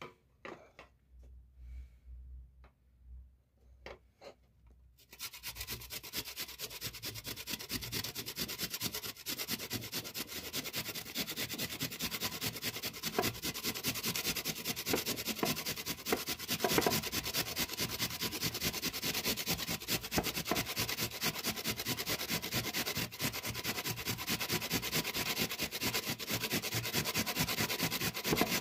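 Metal box grater rasping steadily as a soft yellow food is rubbed rapidly up and down its holes, starting about five seconds in after a few light handling clicks.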